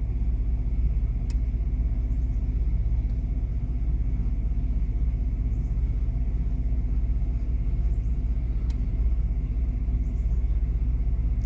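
1998 Chevy C1500's 5.0-litre Vortec V8 idling with a steady, even low rumble, plus a few faint clicks.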